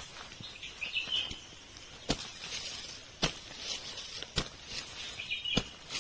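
A series of sharp knocks, evenly spaced about once a second, four in all, starting about two seconds in.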